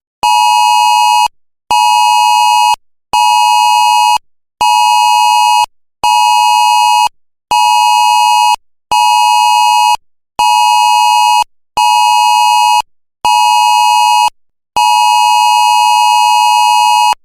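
Emergency alert attention tone: a loud, buzzy, mid-pitched beep repeated eleven times at about one every second and a half, the last beep held about twice as long.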